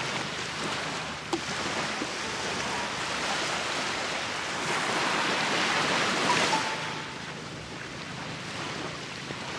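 Small sea waves washing on a sandy shore: a steady hiss of surf that swells about halfway through and eases off near the end. A light click sounds about a second in.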